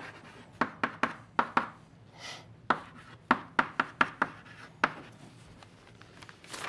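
Chalk writing on a blackboard: a quick, uneven run of sharp taps and short scrapes as the chalk strikes and drags across the board, with one longer scratch a little over two seconds in. The strokes stop about five seconds in.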